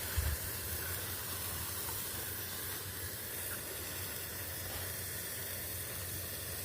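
A bunch of Brothers Gamma Glow colour sparklers burning with a steady hiss.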